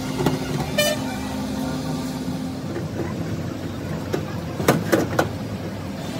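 Steady street-traffic hum, with a brief high-pitched toot about a second in and three sharp clacks a little past the middle as battery plates are handled in a metal stacking jig.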